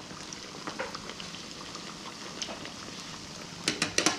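Cornmeal empanadas deep-frying in oil in a skillet: a steady sizzle with small pops. Near the end comes a quick run of sharp clicks and knocks.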